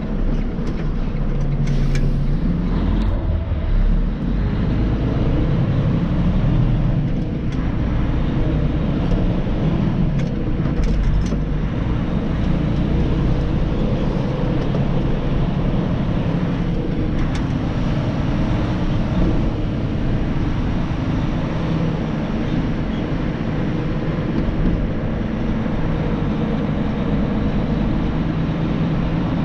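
Freightliner Cascadia semi-truck under way: a steady low engine drone mixed with road noise.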